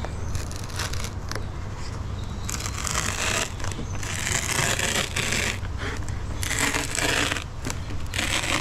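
A knife blade cutting through a foam pool noodle: a run of scratchy, crunching strokes starting a couple of seconds in, about five of them, each under a second long.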